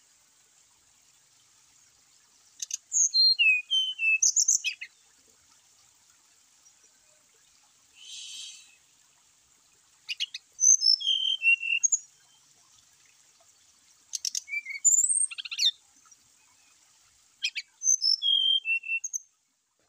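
Brown-chested jungle flycatcher singing in four short bouts of high, clear whistled notes, many sliding downward, mixed with sharp clicks, a few seconds apart. A brief rasping hiss sounds near the middle.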